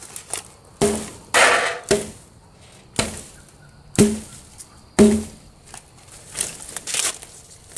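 Sledgehammer striking wooden fence boards, about six hollow wooden thunks roughly a second apart, one followed by a brief crackle, then a few lighter knocks near the end.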